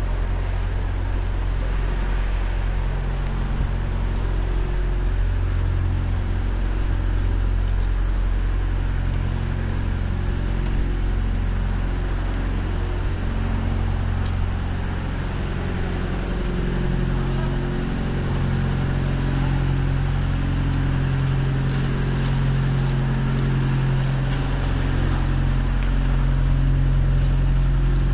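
A large engine running steadily with a deep, unchanging hum, over a continuous hiss.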